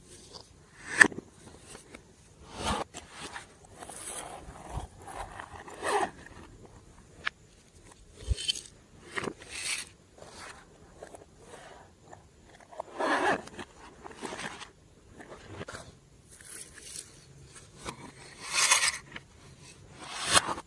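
Glossy slime being squished and stretched by hand, giving irregular sticky crackling swells every second or two with a few sharp pops.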